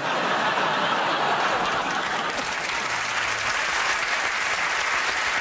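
Studio audience applauding, the clapping starting all at once and holding steady.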